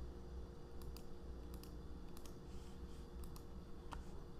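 Scattered clicks of a computer mouse and keyboard being worked, several coming in quick pairs, over a low steady hum.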